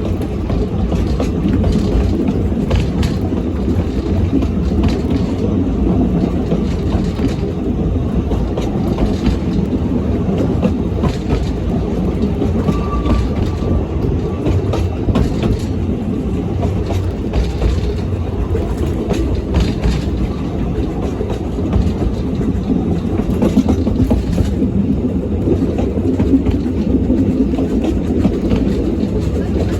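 Narrow-gauge train running steadily with four coaches: a continuous low rumble from the running gear, broken by irregular clicks and knocks from the wheels on the track.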